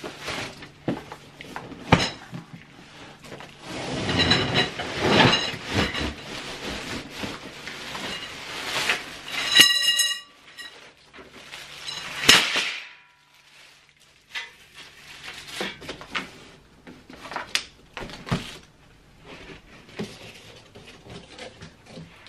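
Unpacking a large cardboard box of rolling-cart parts: cardboard scraping and rustling, plastic wrap crinkling, and parts knocking and clinking against each other, with one ringing metallic clink just under ten seconds in.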